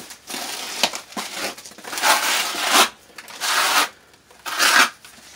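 Wet mortar mix being pressed and scraped onto expanded-metal lath over a concrete wall, in about four rasping strokes with short gaps between them.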